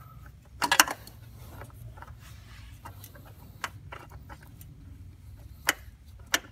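A few sharp metallic clicks and a brief rattle as a spin-on oil filter is handled and threaded onto its engine mount by a gloved hand, over a low steady hum. The loudest rattle comes about a second in, with single clicks later.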